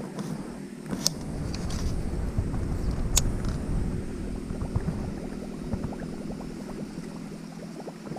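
Close handling noise of a baitcasting rod and reel: small crackles and rustles, with two sharp clicks about one and three seconds in, over a steady low hum.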